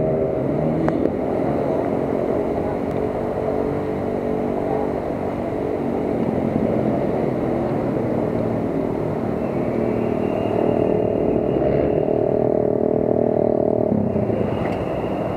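Motorcycle engine running at low revs while riding slowly, its note holding steady for stretches and shifting as the throttle changes, dropping about fourteen seconds in.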